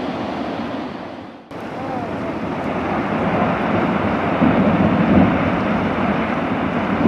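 Rushing wind and heavy waves, with wind buffeting the microphone. The sound dips to near nothing about a second and a half in, comes back, and swells about two-thirds of the way through.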